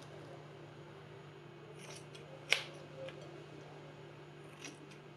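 Kitchen scissors snipping through raw pork belly strips: a few short snips, the loudest about halfway through, over a low steady hum.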